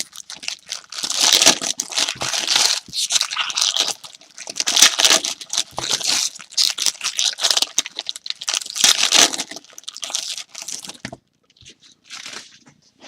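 Plastic card-pack wrappers crinkling and tearing as trading-card packs are opened and handled, in a string of irregular rustling bursts that stop about eleven seconds in.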